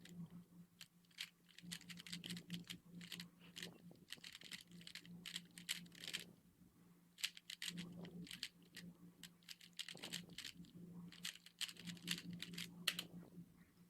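Rubik's cube being turned rapidly during a speedsolve: fast, faint plastic clicking and clacking of the layers, with a short pause a little before halfway.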